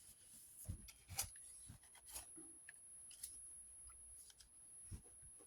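Paper-craft materials being handled: soft clicks and light rustles, about one a second.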